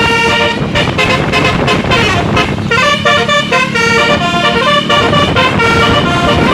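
A bus's 'telolet basuri' musical multi-tone air horn playing a melody, its notes switching pitch every fraction of a second, over the steady rumble of the bus engine.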